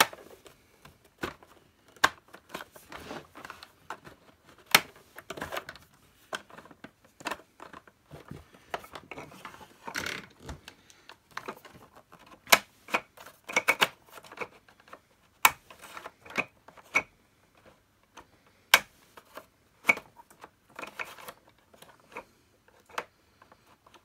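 Hand handling of a vacuum cleaner's plastic parts being fitted together: irregular clicks, taps and knocks, with a few sharper snaps among them.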